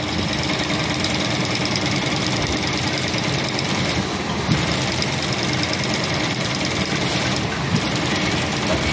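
Industrial sewing machine running steadily at sewing speed, stitching webbing fed through a single-fold piping folder onto fabric.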